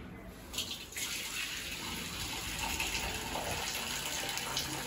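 Cooking water from boiled spinach and toor dal being drained off a steel pressure-cooker pot into a steel vessel below: a steady pouring stream of liquid that starts about a second in.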